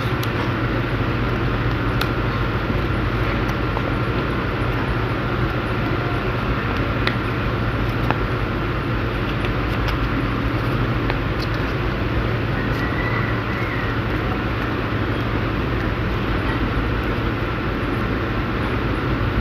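Steady background rumble and hiss with a low hum and a faint constant high tone, broken by a few soft clicks of stiff paper being creased and folded by hand.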